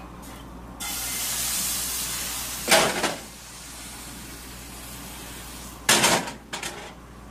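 Crepe batter sizzling as it is poured into a hot cast iron skillet: a bright hiss for about two seconds that drops away as the pan is lifted and tilted to spread the batter. A knock near 3 seconds in and a clatter near 6 seconds as the skillet is handled on the electric coil burner.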